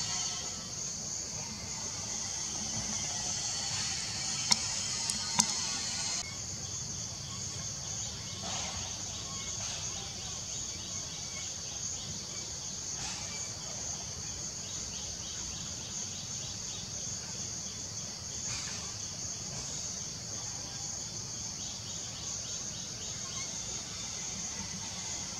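Steady, high-pitched drone of a forest insect chorus, with two sharp clicks about four and five seconds in.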